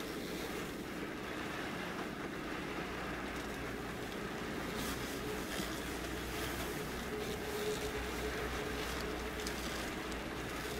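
Car cabin noise in the rain as the car drives slowly on a wet quay: a steady low engine and road rumble under a constant hiss, with a few faint raindrop ticks on the windscreen.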